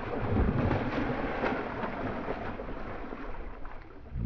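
Wind and sea noise around a small fibreglass boat: an even rushing hiss with a low rumble and a few faint splashes or knocks.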